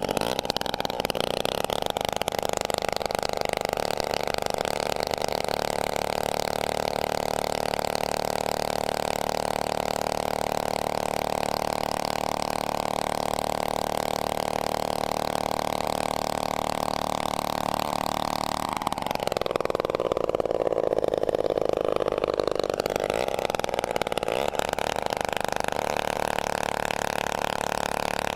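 Vintage Homelite 26 two-stroke chainsaw running steadily; about two-thirds of the way through its engine speed drops sharply and climbs back over a few seconds.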